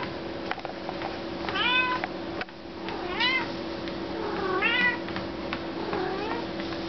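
Long-haired calico cat meowing four times, each meow rising and then falling in pitch, the last one fainter. Under the meows runs the steady hum of the treadmill motor she is walking on.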